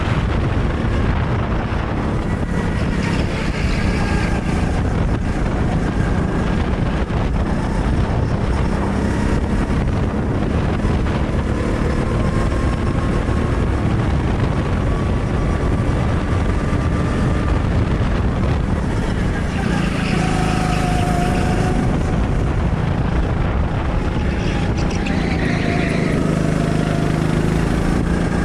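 Go-kart engine running hard, heard from on board the kart, its pitch rising and falling as it accelerates out of corners and lifts into them, over a steady rush of noise.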